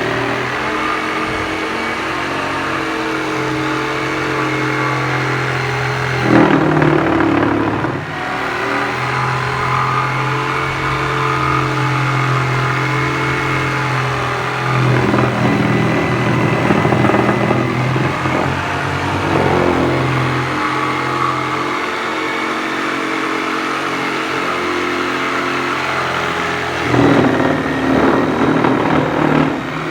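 Power woodworking tool with an electric motor running steadily, its pitch shifting now and then, with louder rasping stretches three times as it cuts into the wood.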